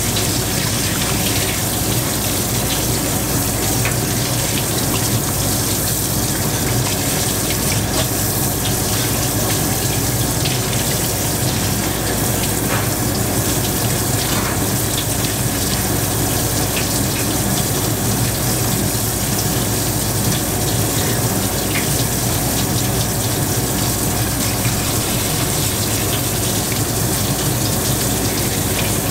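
Kitchen tap running steadily, its stream splashing over pufferfish pieces being rinsed in gloved hands.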